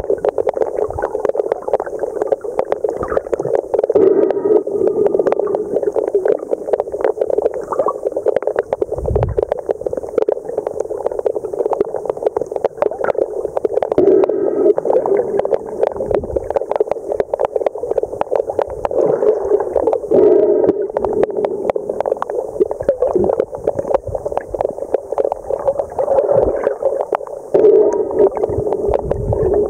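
Underwater sound picked up by the camera: a steady crackle of many small clicks, with a surging, bubbling rush that swells every several seconds and a low thump about nine seconds in.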